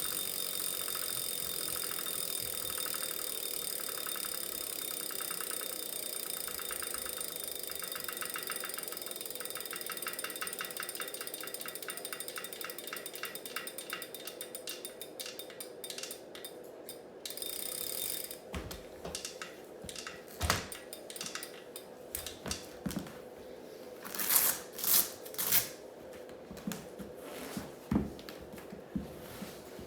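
Wahoo Kickr Core smart bike trainer running with a steady whine and a fast, rhythmic clicking: the clicking fault it has developed. The whine and clicking stop suddenly about 18 seconds in, followed by scattered knocks and thumps.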